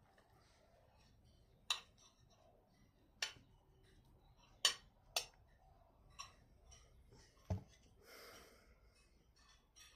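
Cutlery clicking and tapping on a plate: about six sharp, separate taps spread over several seconds, with a short soft breath near the end.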